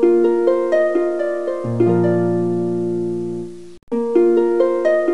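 End-screen background music: a quick run of sharply struck notes over a held low note. The short loop drops out briefly about four seconds in and starts over.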